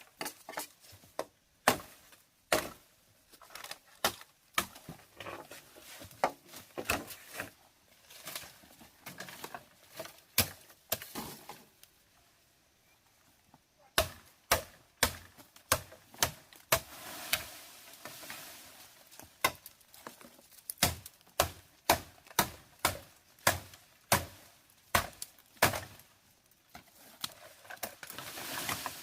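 Repeated sharp chopping strikes, irregular and close together at first, then a short pause, then a steady run of about two blows a second.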